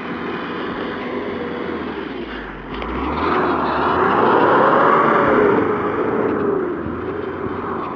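Mitsubishi Pajero engine revving as the 4x4 works through deep snow. The engine note rises and grows louder about three seconds in, peaks, then falls back about six seconds in.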